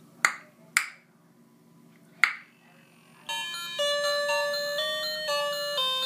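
Three sharp clicks or snaps, then about three seconds in a tinny electronic chime tune starts up, like an ice-cream-van jingle, from the motion-activated cat fountain knick-knack.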